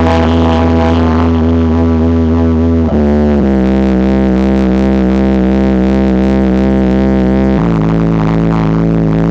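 12-inch TC Sounds prototype subwoofer in a slot-ported box playing loud bass-heavy music: long held bass notes that step down in pitch twice.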